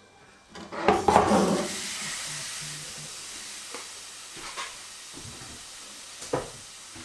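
A pot of rice and water is set down with a clatter on a hot electric hob plate about a second in. It is followed by a steady sizzling hiss that slowly fades, with a few small ticks.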